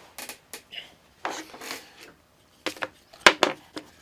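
Paper and packaging being handled on a workbench: a series of short rustles and rubs with a few knocks, the loudest a sharp click about three seconds in as a small object is set down on the bench.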